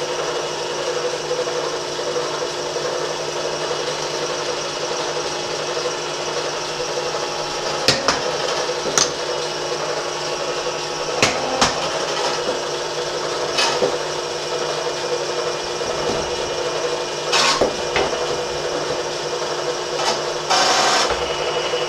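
Milling machine spindle running steadily while a 3/16-inch end mill cuts into a spot weld on a sheet-steel drawer divider. A scatter of short, sharp scrapes and clicks comes as the cutter bites, with a longer grating burst near the end.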